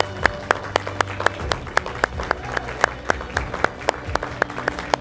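Audience applauding, with sharp claps coming about four a second over background music with low held notes.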